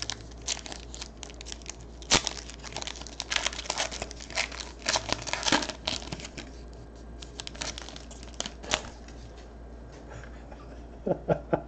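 A sealed trading-card pack wrapper being torn open and crinkled by hand, then the cards inside being pulled out and handled. It is a run of short, sharp crackles and rustles, dense for most of the time and thinning out near the end.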